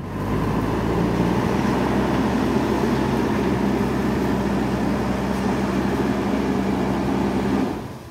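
Diesel engine of a backhoe loader running steadily under way as the machine drives along a dirt track, fading down near the end.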